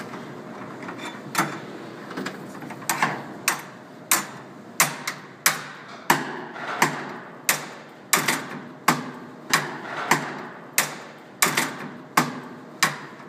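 A metal road case latch being repaired: a steady series of sharp metallic clicks or knocks, about three every two seconds, each with a short ring.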